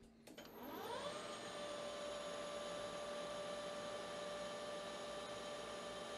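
Lathe spindle motor starting up: a faint whine rising in pitch for about a second, then running at a steady speed with an even hum and whine.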